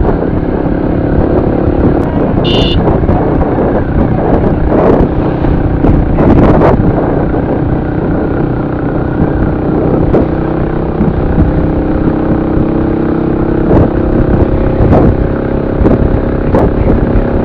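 Motorcycle engine running steadily at cruising speed, heard from the rider's seat, with wind noise gusting over the microphone. A short high beep sounds about two and a half seconds in.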